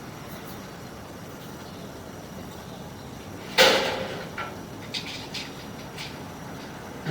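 A single loud bang about halfway through, fading quickly, followed by a few lighter clicks, over a steady background hiss.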